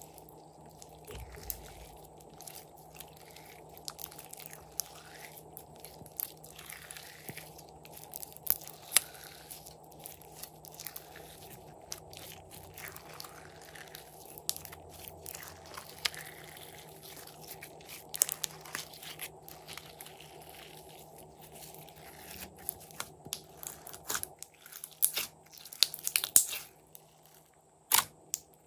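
Hands stretching, folding and squeezing clear green slime, which gives off sticky crackles and small wet pops all through; the pops come louder and closer together near the end as fingers press and poke into it.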